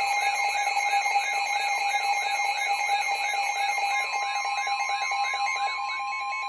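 Emergency alert tones announcing a tornado warning: a steady alert tone with a fast warbling alarm over it, about four warbles a second.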